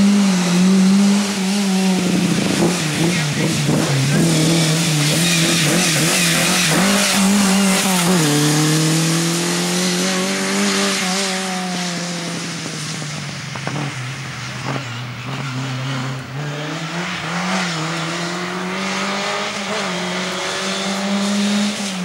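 Lada VFTS rally car's four-cylinder engine driven hard, its note rising and falling with throttle and gear changes, with a sharp drop in pitch about eight seconds in.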